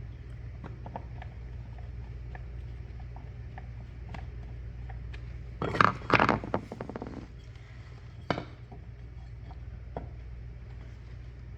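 Small clicks and ticks of hand work on a wall outlet and its mounting screws. There is a brief louder clatter of hard parts about six seconds in and a single knock a couple of seconds later, over a steady low hum.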